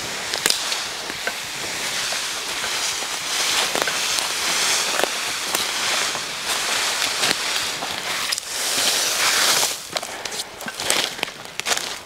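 Spruce boughs dragged and laid onto a pile over dry leaf litter: dense rustling and crackling of needles, twigs and leaves, loudest for a couple of seconds about three quarters of the way through, then breaking into crunching footsteps on the leaves.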